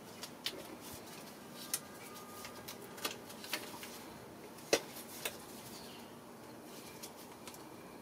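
Scattered light clicks and taps of hand tools and parts being handled on an engine's intake manifold as its bolts are taken off, about half a dozen in all, the loudest a little before five seconds in.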